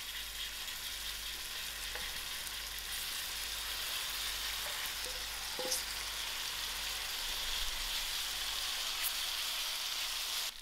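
Marinated chicken pieces frying in hot oil with onions in a stainless steel pan: a steady sizzle. A light metallic clink about halfway through.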